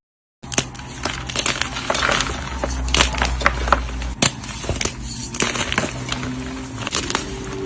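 Blocks of dyed gym chalk being crushed, giving a run of crisp crunches and crackles with several louder snaps.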